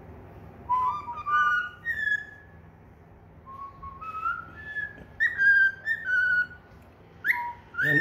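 Cockatiel whistling a tune: three short phrases of clear notes that step upward in pitch, with brief pauses between them.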